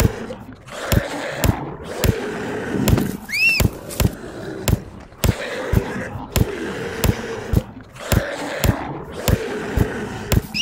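Hollow plastic toy bat whacking a large plush toy over and over, about two sharp hits a second. A short high squeal about three seconds in.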